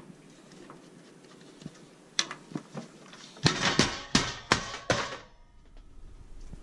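Household knocks and clatters: a single click about two seconds in, then about five sharp knocks in quick succession a little past the middle.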